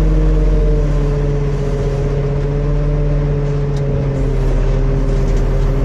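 John Deere motor grader's diesel engine running steadily under way, heard from inside the cab, its note stepping down slightly about a second in.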